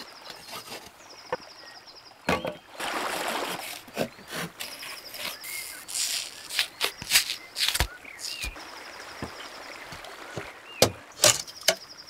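Hatchet chopping into and splitting green wooden poles: a series of sharp knocks and cracks, with a longer rough splitting noise about three seconds in. A bird trills repeatedly in the background.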